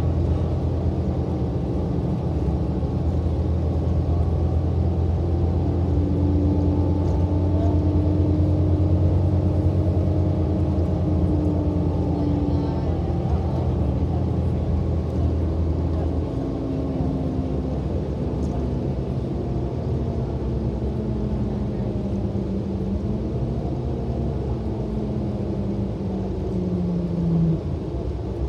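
City transit bus running along a road, heard from inside the cabin: a steady engine and drivetrain hum with whining tones that glide up and down with speed, over road noise. The deep hum drops away about halfway through, and near the end a rising tone cuts off suddenly.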